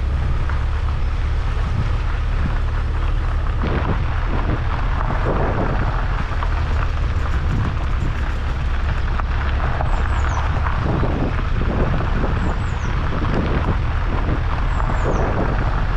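Heavy wind noise on the microphone over the low, steady rumble of a moving golf cart.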